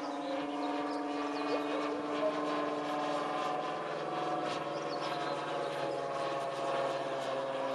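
Engine of a radio-controlled model Spitfire in flight, a steady drone whose pitch shifts slightly about halfway through.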